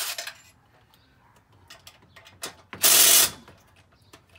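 Cordless driver with a socket running in a loud burst of under a second about three seconds in, backing out a blower housing bolt on a Predator 212cc engine. The tail of another short burst is heard at the very start, with light clicks from handling the tool and bolts in between.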